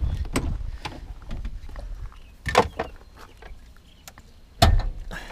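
A car door being unlatched and swung open, heard as a few sharp clicks and a louder knock near the end, with a faint rattle of handling in between.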